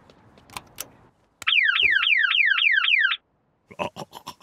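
Cartoon car alarm going off: a loud electronic tone sweeping down over and over, about five times a second, for under two seconds. It stops suddenly and is followed by a quick run of clicks.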